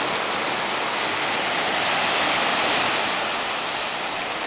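Ocean surf breaking and washing up a sandy beach: a steady rushing noise that swells a little around the middle.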